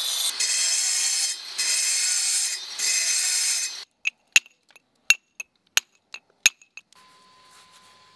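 Angle grinder with a cutting disc whining at a high pitch as it cuts granite, dropping out briefly twice. About four seconds in it gives way to eight or so sharp, ringing taps of a hand-held steel carving tool on the granite, spaced irregularly. The last second or two is only faint sound.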